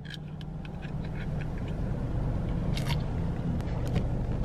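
An aluminium drink can's tab clicking open at the start, then camera handling noise: a low rubbing rumble of the microphone against fabric, with scattered small ticks and a short scrape near three seconds in.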